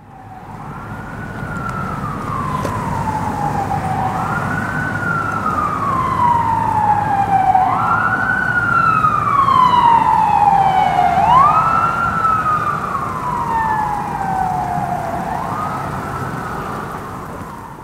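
Emergency vehicle siren on a slow wail: each cycle climbs quickly and then falls slowly, repeating about every three and a half seconds, five times in all, over a low rumble. It grows louder toward the middle and fades out near the end.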